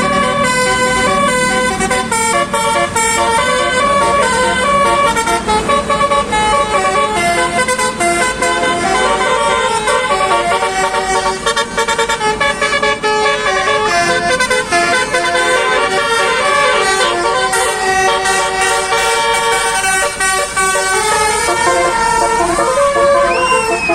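Telolet basuri multi-tone bus horn playing a quick, continuous melody, its horn notes changing step by step and often sounding several at once.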